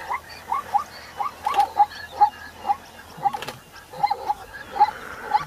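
Zebra calling: a quick, uneven run of short, barking yelps, about three a second.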